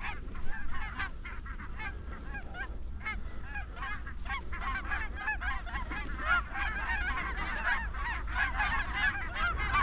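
A flock of geese honking, many overlapping calls that grow denser and louder from about halfway through as the birds come in over the decoys. A steady low rumble runs underneath.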